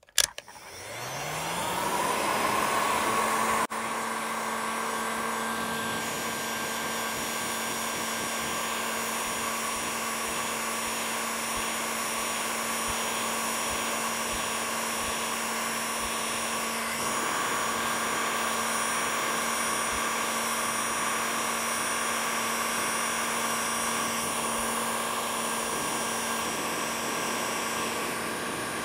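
Electric heat gun switching on, its fan spinning up in a rising whine over about two seconds, then running steadily with an even whir and hiss of blown air. It is heating a chainsaw crankcase's bearing pocket to free the crank bearing.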